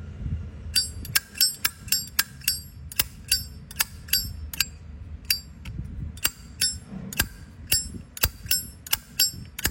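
Light metallic clinks, about two to three a second and unevenly spaced, each with a brief high ring, as a metal wristwatch is handled.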